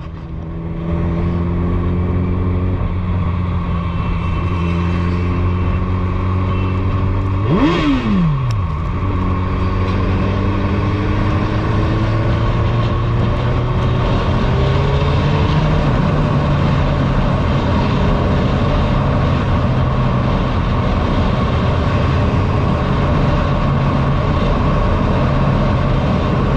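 Suzuki Hayabusa's inline-four with a Two Brothers Racing aftermarket exhaust, running at low steady revs, with a quick sharp throttle blip about eight seconds in, then revs slowly rising as the bike picks up speed.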